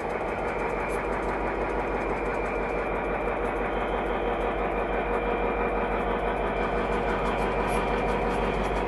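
Class 59 diesel locomotive's EMD 16-645 two-stroke V16 engine running steadily, a constant low hum with level tones over it.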